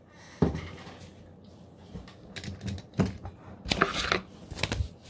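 Scattered clicks and knocks from handling things at a computer desk, with a sharp knock about half a second in and a denser run of clicks near the end.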